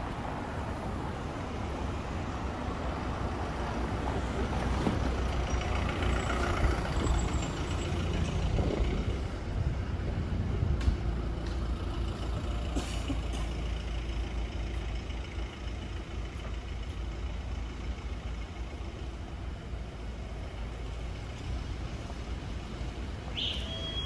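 City street traffic: the steady rumble of passing vehicles, swelling for several seconds as a heavy vehicle goes by in the first half. A short high tone sounds near the end.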